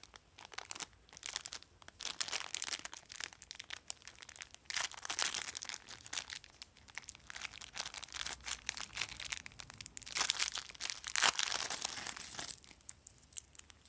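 Small plastic blind-bag wrapper crinkling and tearing as it is opened by hand. The crackling is irregular, heaviest around five seconds in and again from about ten to twelve seconds, then dies down near the end.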